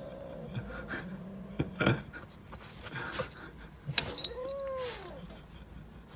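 A cat's paw swat landing on a French bulldog with a short thump about four seconds in, followed by a brief whine from the dog that rises and then falls. Light taps come earlier as the animals shift on the bed.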